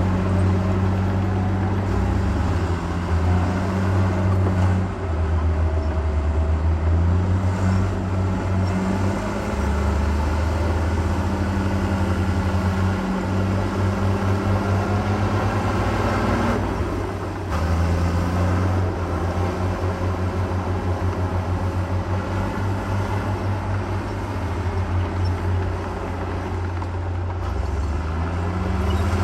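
Heavy diesel engine of earthmoving equipment running under load, its pitch stepping up and down as the machine works.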